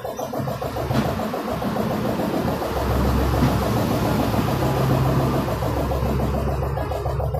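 A motor vehicle engine running steadily, its low rumble growing stronger about three seconds in.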